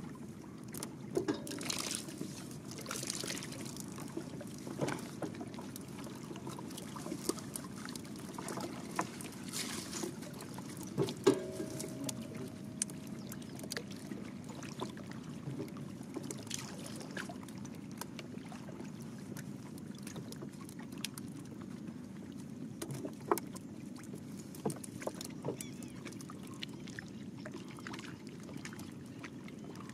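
Water splashing and dripping around a small boat, with scattered knocks over a steady low rumble; the loudest knock comes about eleven seconds in.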